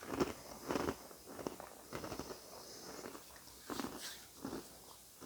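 A person chewing dry Sour Patch Kids cereal pieces, with irregular crunches every half second or so and a pause in the middle.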